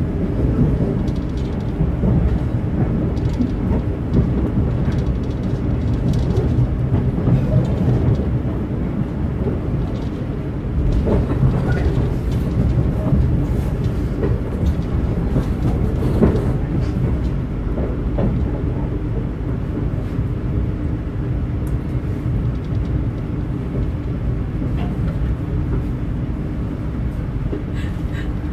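Running noise of a passenger train heard from inside the coach: a steady low rumble of wheels on rail with scattered faint clicks. It grows slightly quieter in the second half as the train slows for a station stop.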